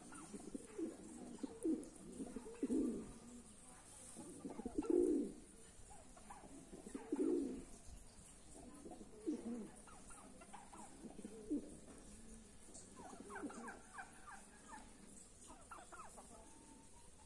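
Domestic pigeons cooing: low, throaty coos repeating every second or two, with a few higher, quicker sounds near the end.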